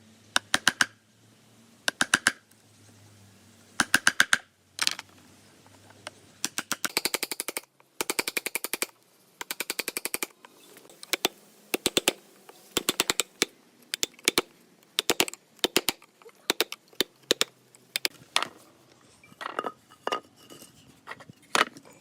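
Repeated bursts of sharp, rapid clicks or taps, several strikes in quick succession per burst, coming every second or so, as from a tool working wood.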